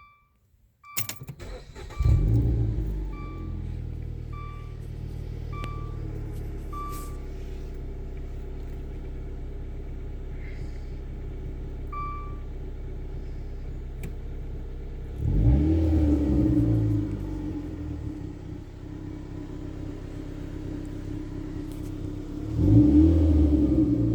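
Dodge Dart SXT's 2.4-litre four-cylinder engine, fitted with a K&N performance air filter, is cranked and starts about a second in, over a dashboard warning chime beeping at an even pace. It settles to a steady idle, is revved up and back down about 15 s in, and is revved again near the end. Heard from inside the cabin.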